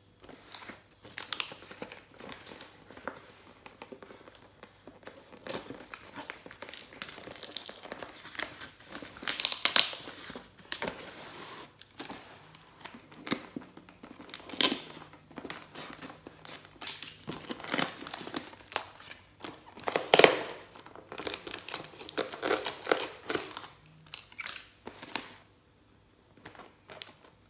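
Plastic and paper parcel wrapping crinkling and tearing as a taped package is cut open with scissors and pulled apart, in irregular rustling bursts, loudest about three-quarters of the way through.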